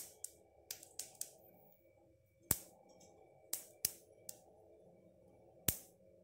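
Black sesame seeds crackling as they dry-roast in a heavy pan, about ten sharp, irregularly spaced pops. The popping is the sign the seeds are roasted.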